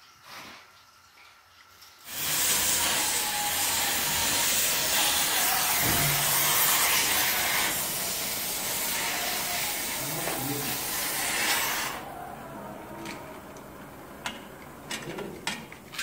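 Hand torch working on a car's steel body panel: a loud, steady hiss starts about two seconds in and stops abruptly about twelve seconds in. A few small clicks and ticks follow near the end.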